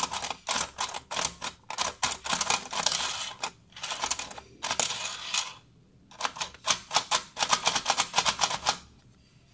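Plastic Pikachu staircase-slider toy running, its motor-driven stair steps making a fast, typewriter-like clatter of plastic clicks. There is a brief break a little past halfway, and the clatter stops near the end.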